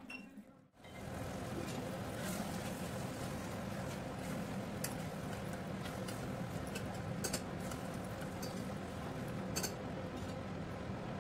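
Mutton gravy sizzling and bubbling as it cooks dry in an open pressure cooker, a steady even noise, with a few sharp clicks of the spatula against the pot as it is stirred.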